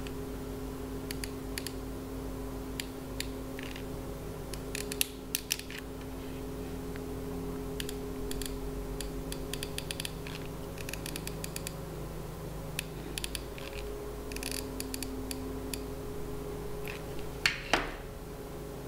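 Small scattered clicks and scratches from a hand-held hot glue gun being triggered and a paper cone being turned, over a faint steady hum. Near the end, two sharper knocks as the glue gun is set down on the table.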